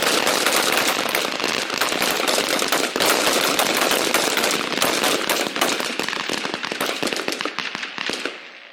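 A firing line of many rifles shooting at once, shots overlapping into a continuous crackle during a timed rapid-fire string, thinning out and stopping near the end.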